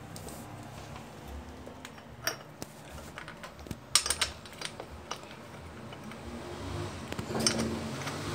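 Light metal clicks and clinks of a bottom-bracket tool and a cup being handled and seated against a steel bicycle frame's bottom bracket shell, a few scattered taps with the sharpest cluster of clicks about four seconds in.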